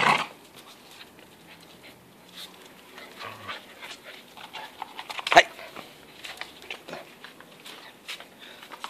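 Staffordshire-type bull terrier panting, with scattered light clicks. There is a loud burst of noise right at the start and a sharp knock about five seconds in.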